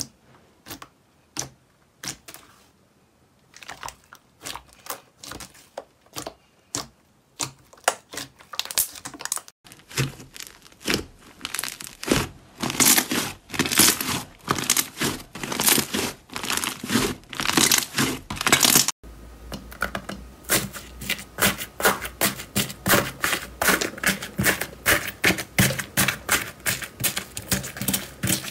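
Hands pressing, poking and kneading slime, making rapid sticky clicks and crackling pops. The clicks are spaced out at first, grow thick and louder after about ten seconds, and turn into a dense, continuous crackle about two-thirds of the way in.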